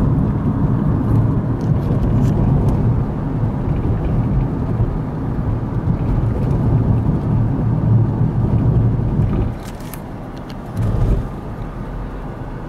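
Steady low road and engine rumble of a car being driven, heard from inside the cabin. The rumble drops noticeably about nine and a half seconds in, with a short swell a second or so later.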